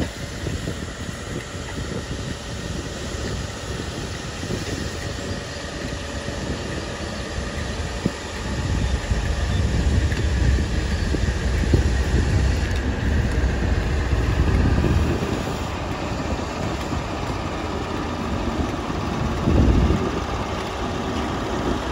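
High Speed Train passing slowly: Mark 3 coaches rolling by on the rails, then the diesel engine of the rear Class 43 power car running as it draws level. A low rumble grows louder from about eight seconds in, with a short louder swell near the end.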